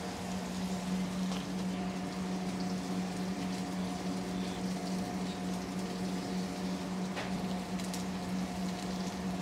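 Swordfish steaks sizzling as they sear in hot clarified butter in a cast iron pan, over a steady low hum.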